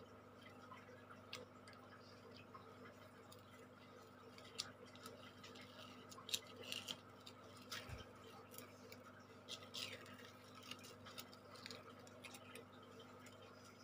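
Faint scattered ticks and short scratches of a thin wooden stick picking at and peeling the backing paper off a sticky sand-painting board, over a steady low hum.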